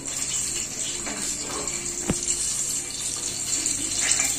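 Green chillies frying in hot oil in an aluminium pot, giving a steady sizzling hiss, with one sharp tick about two seconds in.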